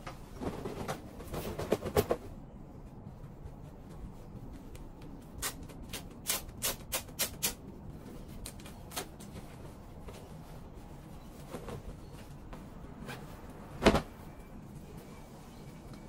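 Clothes being handled on a hanger at a garment steamer: cloth rustling early on, a quick run of about six clicks, and one sharp knock, the loudest sound, near the end.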